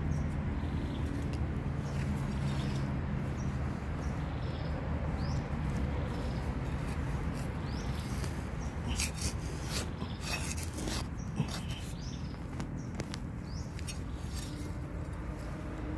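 A metal knife blade scraping and digging into soil, with a few sharp scrapes about nine to eleven seconds in. A bird gives short rising chirps over and over, over a steady low rumble.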